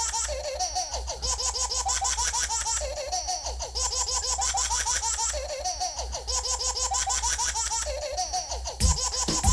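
Recorded dance music playing over the sound system: a steady bass beat with fast hi-hat ticks and a short, high chirping melodic phrase that loops about every three seconds.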